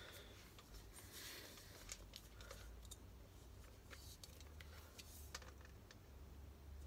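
Near silence, with faint handling noises: light clicks and rustles as a steel army helmet is lifted off and turned in the hands.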